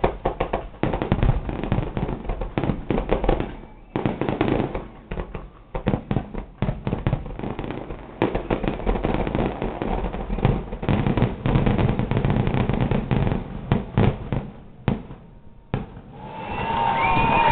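Fireworks display: a dense, rapid barrage of bangs and crackles that thins out and stops about fifteen seconds in.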